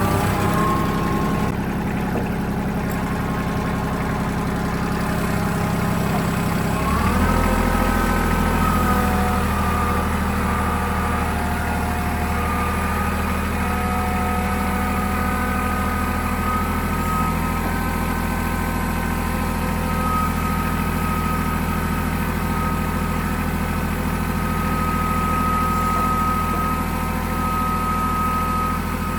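A farm vehicle's engine running steadily. Its note changes about seven seconds in, and a faint high whine comes and goes over it.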